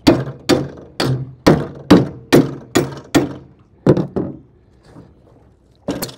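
Hammer blows on a bent aluminium boat bowsprit tube, knocking it back into shape. About eight strikes at roughly two a second, a short pause, two more, then one last blow near the end.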